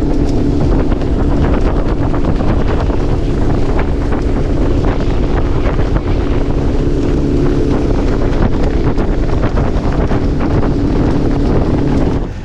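Boat motor running steadily while the boat is under way, with heavy wind buffeting the microphone. The sound drops off sharply near the end.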